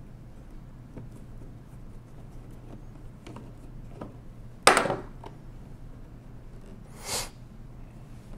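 Screwdriver work on a 1920s Monroe mechanical calculator: the last side-panel screw being backed out with faint handling ticks, then one sharp knock about halfway through and a short scraping rustle a couple of seconds later as the screwdriver is set down.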